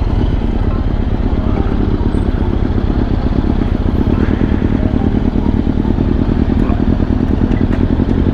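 Yamaha Stratoliner's big V-twin motorcycle engine running steadily under the rider.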